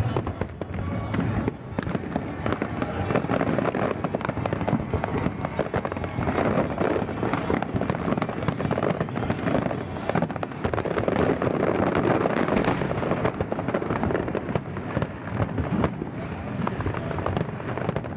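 Fireworks display: many shells and comets bursting in rapid succession, a dense, continuous run of bangs and crackling.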